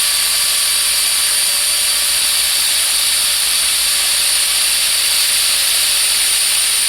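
Router spindle of a small Arduino-controlled CNC router running steadily while cutting round the outside of a wooden plug: an even high hiss with a steady high whine.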